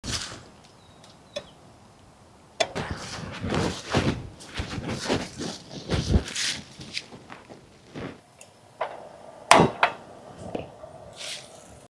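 Camp gear being handled: a string of knocks, clicks and rustles, with a sharp knock about two and a half seconds in and the loudest about nine and a half seconds in.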